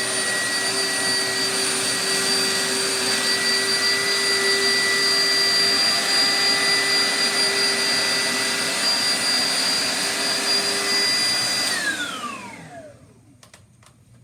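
Oreck Founder Series vacuum cleaner running steadily with a high motor whine. About twelve seconds in it is switched off and the whine falls away as the motor spins down.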